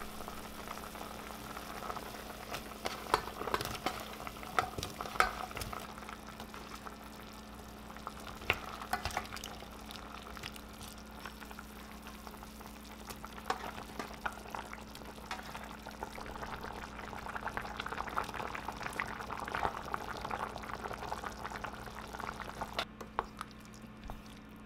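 Gochujang stew boiling in a stainless steel pot, a steady bubbling, with a wooden spoon stirring and knocking against the pot now and then. A steady low hum runs underneath.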